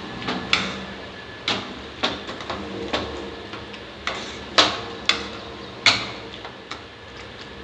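Wooden pav bhaji masher knocking against the bottom and sides of a metal kadhai while mashing a soft tomato and onion gravy: irregular sharp knocks, about one or two a second, the loudest about four and a half and six seconds in.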